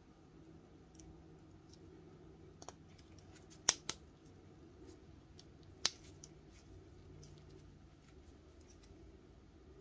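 Hard plastic puzzle pieces clicking and knocking together as they are handled and slid into place: a few sharp clicks, the loudest a quick pair just under four seconds in and another near six seconds, over faint steady room hum.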